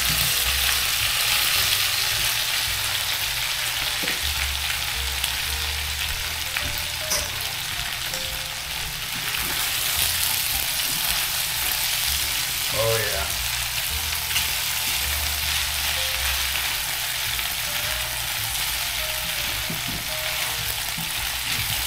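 Boiled dough dumplings (kniddelen) frying in a pan of hot butter and bacon fat, with a steady sizzle.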